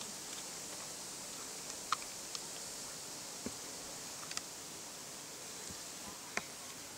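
Quiet outdoor ambience: a faint, steady high-pitched hiss with a few soft clicks and taps scattered through it.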